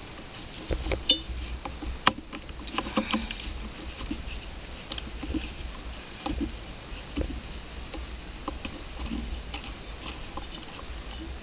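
Hand tools working the purge valve solenoid's mounting nuts in a truck's engine bay: scattered light metallic clicks and taps at irregular times, over a low rumble.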